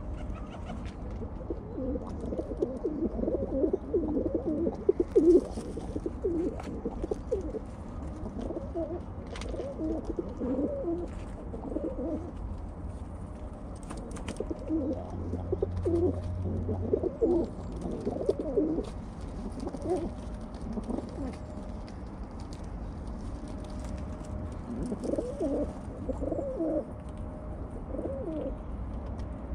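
Rock pigeons cooing, low repeated coos in several bouts of a few seconds each, with scattered sharp clicks mixed in.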